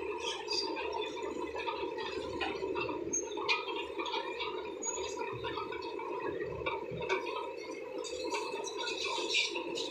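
Caterpillar D6 bulldozers' diesel engines running steadily, with irregular clanks and rattles.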